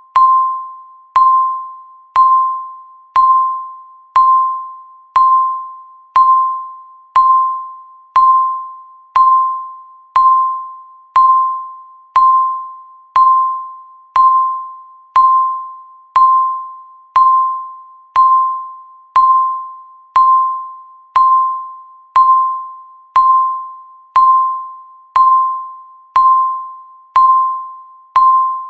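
Countdown timer beeping once a second: a single mid-pitched electronic tone, each beep starting sharply and fading away, evenly spaced and unchanging.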